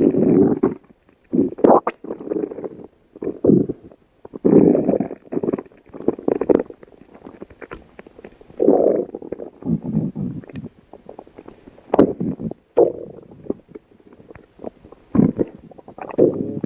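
Stomach growling: a run of irregular gurgling rumbles, some long and some short, with brief pops and clicks between them.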